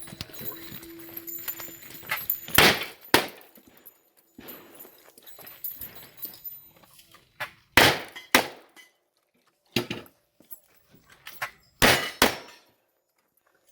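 Gunshots during a timed shooting run, about seven sharp cracks, mostly in pairs half a second apart with pauses of a few seconds between the pairs. Steel targets ring when they are hit.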